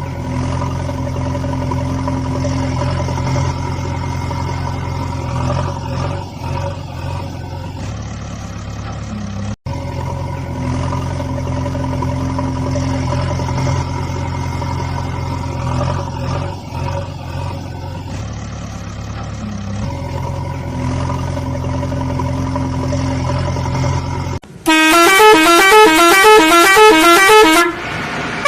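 Dubbed-in truck sound effect: a steady engine drone with held horn-like tones, breaking off for an instant about ten seconds in. Near the end it gives way to about three seconds of a loud, fast run of repeating electronic notes.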